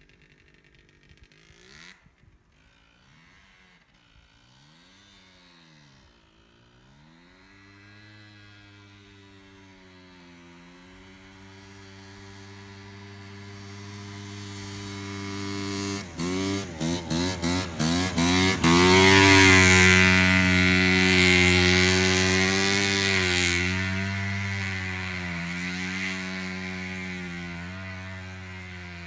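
ATV engine approaching from a distance, revving up and down and growing louder until it passes close about two-thirds of the way through, then fading away. Just before it passes, the engine note breaks off several times in quick succession.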